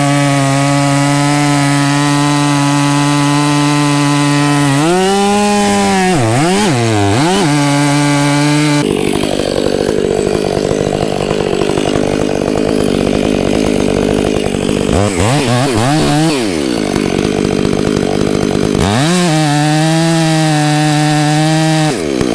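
Gas chainsaw making the back cut through a tree trunk, engine held at high revs. The pitch dips and rises several times as the throttle is eased and opened again, and through the middle the steady whine turns rougher and noisier while the chain is in the wood.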